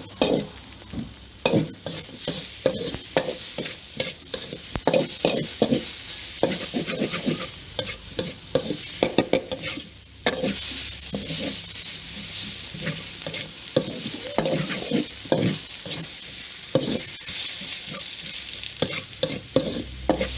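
Food frying and sizzling in a pan while a utensil stirs it, with frequent irregular knocks and scrapes against the pan. The sizzle dips briefly about halfway through, then comes back louder.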